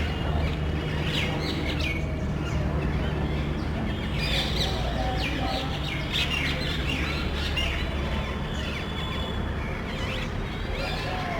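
A small flock of parrots calling loudly: many short, harsh, high-pitched screeches, crowded together in several spells, over a steady low hum.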